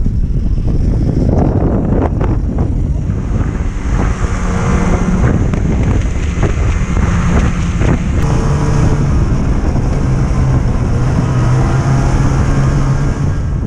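Snowmobile engine running at speed, heard from the rider's seat, with wind buffeting the microphone. The engine's drone settles into a steady pitch about four seconds in.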